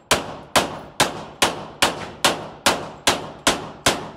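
Handgun fired rapidly on an indoor range: about ten shots in steady succession, roughly two and a half a second, each cracking sharply with a ringing echo that fades before the next.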